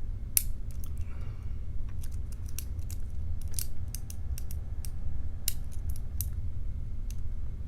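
Irregular small, sharp metallic clicks of a lock pick and tension wrench in a challenge padlock's keyway, as the tension is eased back and the pins reset, over a steady low hum.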